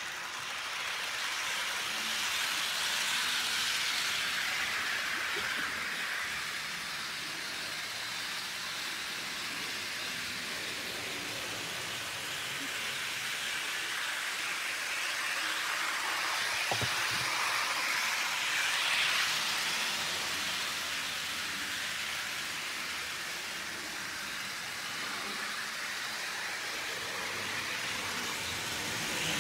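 H0-scale model electric locomotive and double-deck coaches running on the track: a steady hissing rattle of small wheels rolling on the rails that swells and fades as the train comes near the microphone and moves away. A single sharp click about 17 seconds in, likely a wheel crossing a rail joint.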